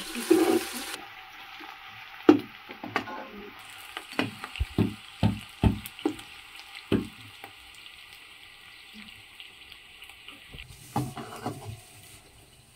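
Cooking sounds: a run of irregular knocks and clatters, likely utensils working a pot, over a faint steady hiss.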